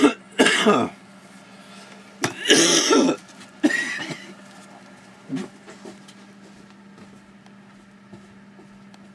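A man with a cold coughing hard several times in the first few seconds, then a weaker cough. After that only a faint, steady low hum remains.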